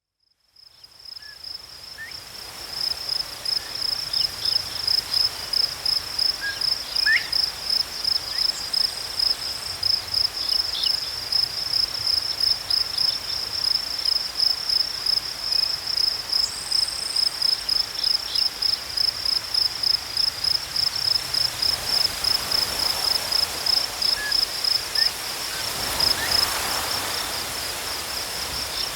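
An insect chirping steadily in an even pulsing rhythm, about two pulses a second, with a few short bird calls and wind in tall grass rising briefly in the later part. The sound fades in over the first couple of seconds.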